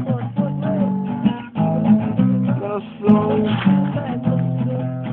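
Acoustic guitar strummed in chords, with a man singing along over it.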